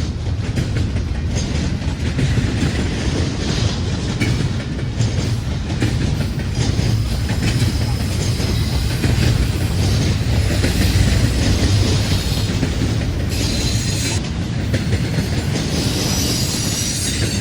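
Freight train passing close by: a steady heavy rumble of wheels on the rails with clattering and a hissing high wheel noise.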